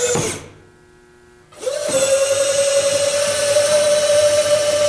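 Small electric motors of a model truck's hook-lift cylinders whining as they drive the arm: the whine drops in pitch and cuts out at the start, stops for about a second, then starts again and runs steadily, its pitch creeping slightly higher.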